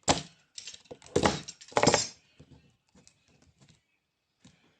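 Handling noises of the home-made portable vacuum cleaner being picked up and set down: a few sharp knocks and clinks in the first two seconds, then faint ticks.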